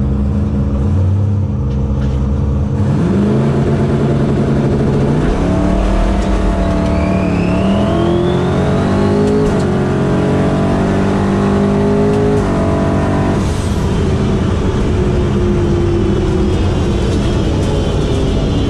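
Twin-turbo LS V8 of a drag-race Camaro, heard from inside the caged cabin: it runs steadily for about three seconds, then launches, and the revs climb in several steps as the transmission shifts up, with a high rising whistle over it. About 13 seconds in the driver lifts off and the engine winds down.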